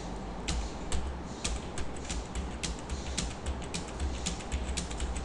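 Computer keyboard keys clicking as single keystrokes, irregular at about three or four a second, deleting and retyping characters in a text box, over a low hum.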